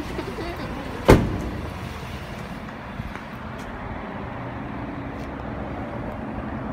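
Steady low rumble of a car driving, heard from inside the cabin, with one sharp thump about a second in.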